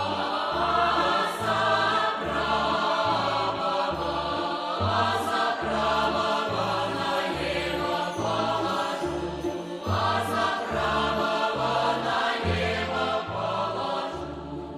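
Music: a choir sings over a steady pulsing bass line of about one note a second, easing down a little near the end.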